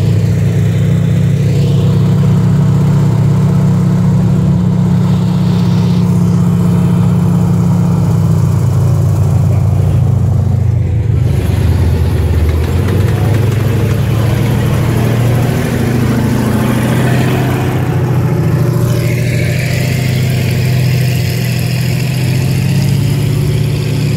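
Engine of a WWII M4 Sherman tank running with a steady deep drone as it drives slowly past, then a WWII half-track's engine as it follows.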